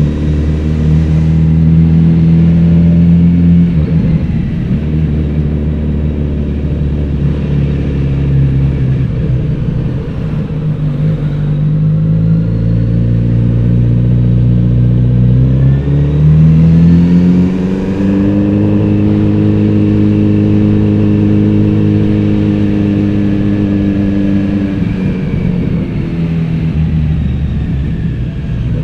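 Kawasaki Z900RS inline-four engine and exhaust under way. It holds a steady note and then drops back. About two-thirds of the way in it revs up to a higher steady note, and it eases off again near the end.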